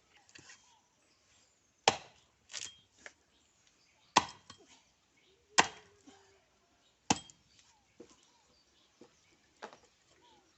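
Heavy tool blows on wood: four loud, sharp strikes about a second and a half apart, with fainter knocks in between.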